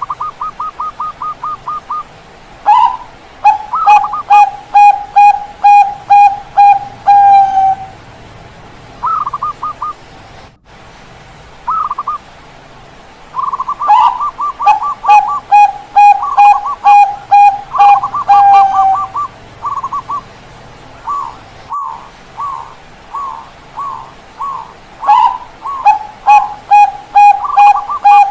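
Zebra doves (Bangkok-bred perkutut) cooing, at least two birds at different pitches. Each phrase is a quick run of about ten short coos. The lower bird's phrases end on a drawn-out note. The phrases repeat every few seconds and often overlap.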